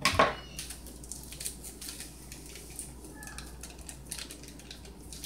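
Scissors snip open a paper packet of active dry yeast with one sharp cut right at the start, followed by faint crinkling and rustling of the packet as the yeast is shaken out over the flour.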